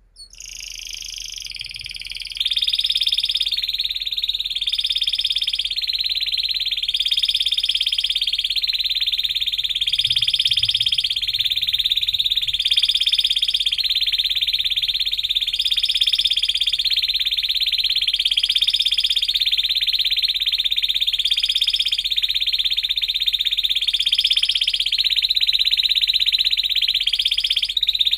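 Domestic canary singing one long, unbroken rapid trill, with a slight rise and fall in pitch about every two seconds. It gets louder a couple of seconds in.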